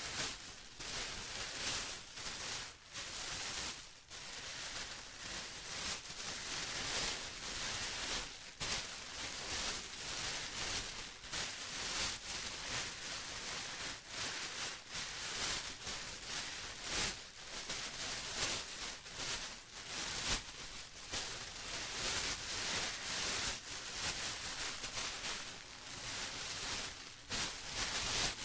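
Plastic being rustled and crinkled without pause, an irregular crackling hiss that is strongest in the highs and flickers with brief dips.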